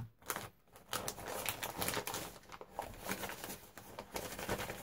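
Sheets of paper rustling and crackling as they are handled and moved, with many small irregular clicks.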